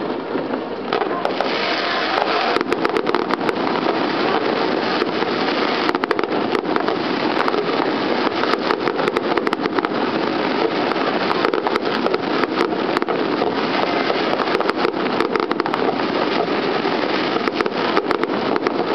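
Fireworks going off in quick succession: a dense run of sharp crackling pops and bangs over a steady rushing background.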